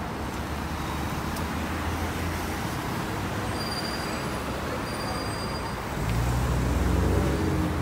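Steady road traffic noise from a busy multi-lane city street. About six seconds in, a vehicle's engine hum grows louder as it passes close by.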